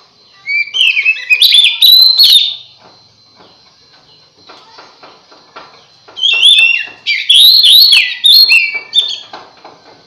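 Oriental magpie-robin (kacer) singing loud, rapid whistled phrases in two bursts: one starting about half a second in, and a longer one starting about six seconds in.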